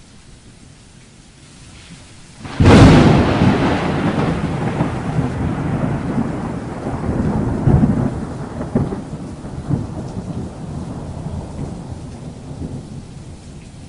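A sudden loud rumbling noise breaks in about two and a half seconds in, then slowly dies away over the next ten seconds with uneven swells.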